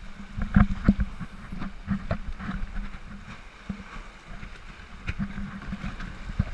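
Paddle strokes splashing and water slapping against a plastic sit-on-top kayak's hull, with irregular knocks, the loudest about half a second and a second in.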